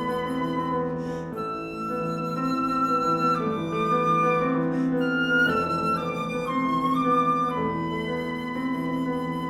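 Concert flute playing long held notes over a sustained piano accompaniment, the melody stepping between a few pitches, with short breaths between phrases.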